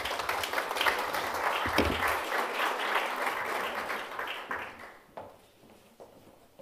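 Seated audience applauding, a dense patter of many hands clapping that fades out about five seconds in.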